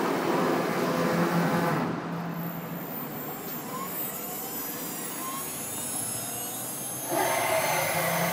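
CNC router running: a steady machine drone with a whine that drops quieter about two seconds in, then grows louder again about seven seconds in as the spindle cuts into an aluminium bar.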